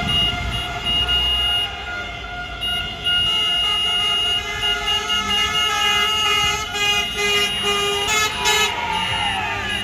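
Many car horns honking together in celebration: overlapping steady horn tones starting and stopping, some held for seconds, with a few falling tones near the end.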